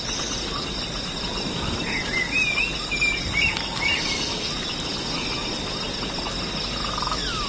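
Outdoor nature ambience: a steady insect-like hiss with a few short bird chirps about two to three and a half seconds in, and a downward whistle near the end.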